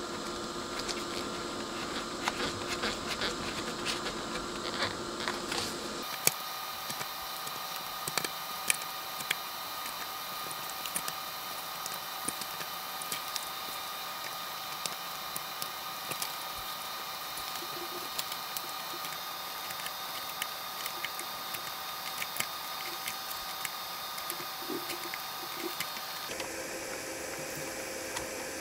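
Scattered small clicks and ticks from soldering potentiometers onto a circuit board and handling tools at the bench, over a steady hum and hiss. The background changes abruptly about six seconds in and again near the end.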